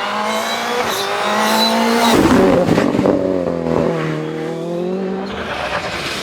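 Rally car engine pulling hard, its pitch climbing, then a gear change about two seconds in; the revs then dip and climb again as the car accelerates away.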